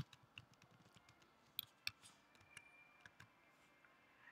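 A few faint, scattered clicks of computer keyboard keys, the sharpest right at the start.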